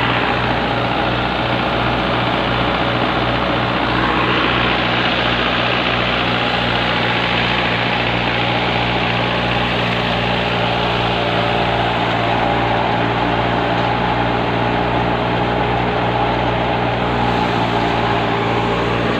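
Belarus tractor engine running steadily under load, driving a belt-driven wheat thresher through its PTO shaft: a constant mechanical drone. A higher rushing noise rises about four seconds in and stays.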